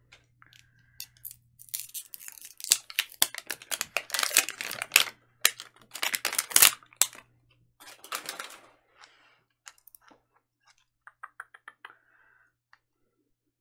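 Plastic shrink wrapping on a Mini Brands capsule ball crinkling and tearing as it is peeled off by hand, in a run of irregular rustling bursts. There are a few light clicks near the end.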